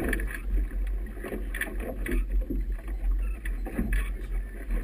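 Boat under way through choppy river water: irregular slaps and splashes of waves against the hull over a steady low wind rumble on the camera microphone.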